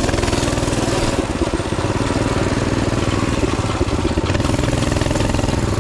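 Mini bike's small engine running steadily as it is ridden over rough grassy ground.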